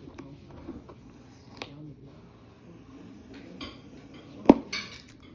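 Toy packaging being handled and opened by hand: scattered light clicks and taps, a sharp knock about four and a half seconds in, then rustling near the end.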